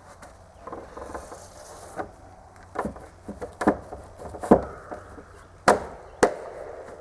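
Irregular wooden knocks and thuds, about six sharp ones a second or so apart, from a heavy wet 2x12 lumber board being handled and set against wooden supports.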